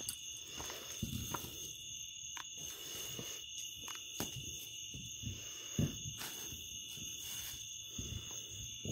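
A steady high-pitched trill of night insects that never stops, over the rustle and bumps of a handheld phone being moved about, with a sharper knock about six seconds in.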